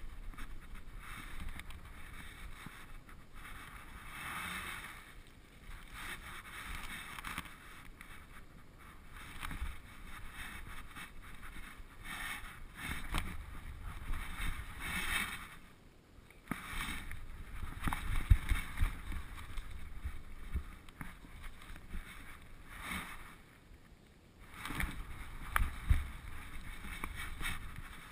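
Rubbing and rustling from a GoPro strapped to a dog's back as the dog moves about, coming in irregular swells, with a few sharp knocks that are loudest in the second half.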